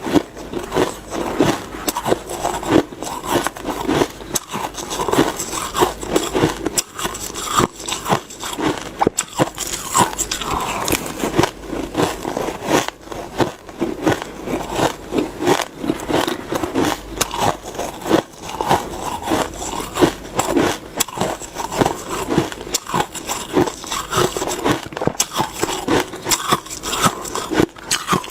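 Shaved ice being bitten and chewed close to the microphone: a dense, continuous run of crunching and crackling.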